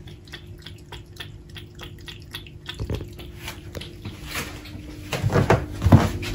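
A cat lapping water, a steady run of small wet clicks at about four a second, with a few louder knocks near the end.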